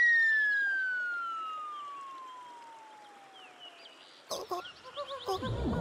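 A single long whistle tone falling steadily in pitch and fading away over about four seconds: a cartoon comedy sound effect. Short chirpy electronic tones and clicks come in near the end.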